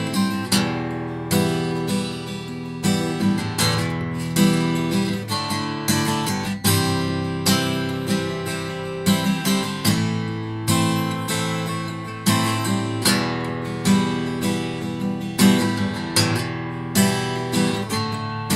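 Acoustic guitar strung with light 10-gauge Ernie Ball strings, strummed in a steady rhythm of chords with no voice.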